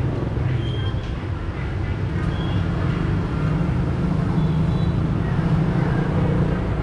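A steady low engine hum, getting somewhat stronger from about two and a half seconds in.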